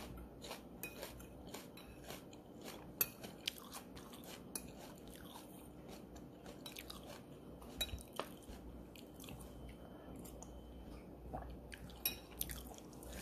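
A person chewing and biting food close to the microphone: soft, scattered mouth clicks and crunches.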